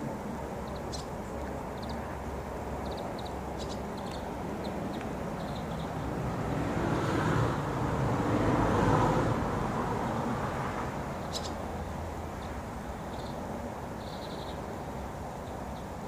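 A vehicle passing, its noise swelling and fading over about five seconds in the middle, over a steady outdoor traffic hum. Scattered short high chirps from young swallows come through now and then.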